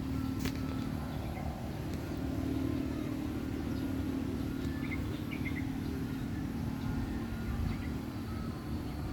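Steady low hum with a few faint short bird chirps over it, and a single sharp click about half a second in.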